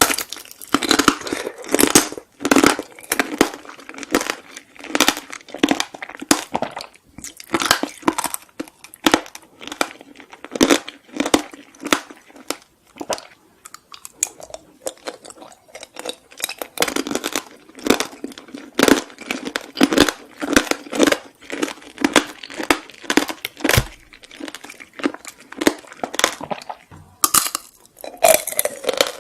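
Plastic snack or candy packaging crinkling and rustling as it is handled and opened close to the microphone, in dense runs of crisp rustles with a couple of short pauses.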